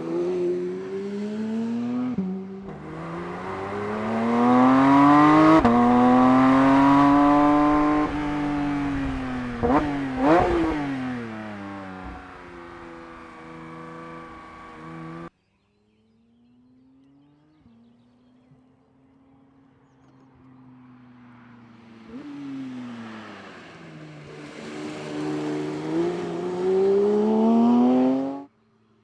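Porsche 992 911 GT3 Touring's naturally aspirated 4.0-litre flat-six accelerating hard, its pitch climbing and then dropping sharply at each gear change. About halfway through it cuts off suddenly and comes back much quieter, then climbs again to loud and stops abruptly near the end.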